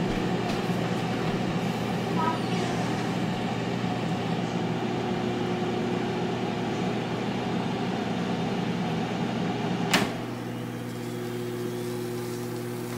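Power XL air fryer running mid-cook, its fan giving a steady hum. About ten seconds in there is one sharp click as the basket is pulled out, and the hum drops quieter after it.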